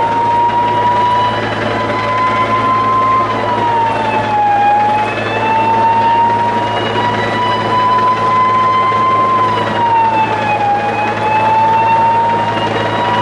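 Police helicopter hovering low overhead: a steady low drone under a high whine that slowly rises in pitch and then drops, twice.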